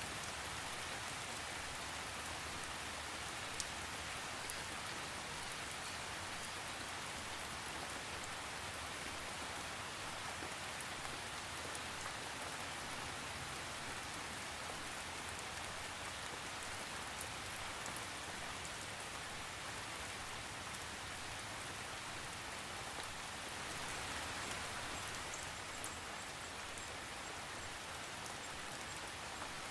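Steady rain falling, with a constant hiss and scattered individual drop hits, no thunder.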